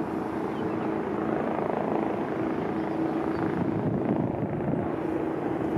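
Boeing 787-8 airliner taxiing, its jet engines at low taxi power heard from a distance as a steady whooshing noise with a faint constant hum.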